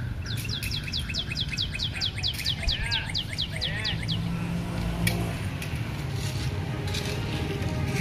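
A bird singing a fast trill of about twenty short descending whistled notes, around five a second, that stops about four seconds in, over a steady low rumble. A few sharp clicks follow in the second half.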